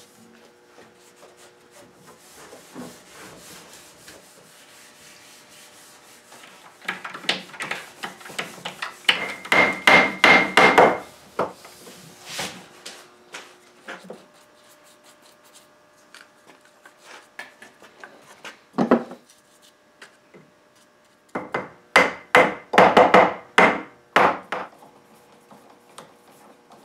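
Hand screwdriver driving screws into the oak leg repair and a bar clamp being tightened. It comes as three bursts of quick, rhythmic rubbing strokes of metal turning in wood, with quieter pauses between.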